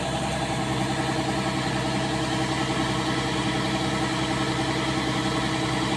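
Kubota DC-70 combine harvester's diesel engine running steadily while it empties rice grain through its unloading auger.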